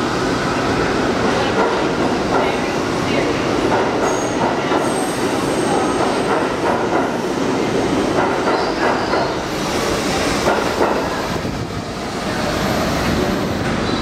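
New York City Subway R62A train pulling out of an underground station and running past, its wheels clattering over the rail joints with brief high-pitched wheel squeals. The level dips briefly about twelve seconds in, then the train runs on into the tunnel.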